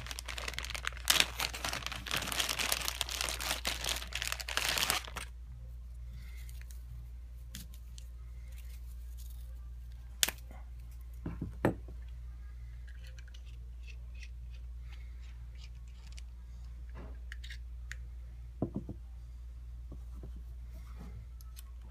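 A clear plastic zip-lock bag being pulled open and crinkled by hand for about five seconds. After that come a few sharp clicks and taps as small metal nail parts are handled and set down, over a steady low hum.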